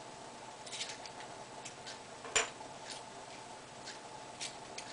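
Faint scattered clicks and ticks of thin metal shims and a digital caliper being handled, with one sharper click about two and a half seconds in. A faint steady tone runs underneath.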